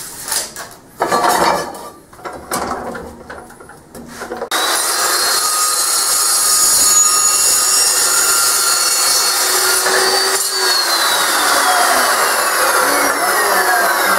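A steel bar clatters as it is set in the saw's vise, then about four and a half seconds in an Evolution metal-cutting chop saw starts suddenly and cuts through the steel, a loud steady noise with a high whine. About ten seconds in, the whine begins falling in pitch as the blade winds down.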